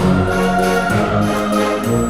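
Background music: orchestral, with held chords changing every half second or so.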